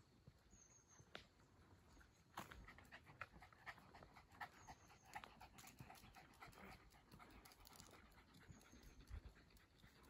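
Faint panting of a Jack Russell terrier, with footsteps clicking and scuffing on an asphalt road from about two seconds in.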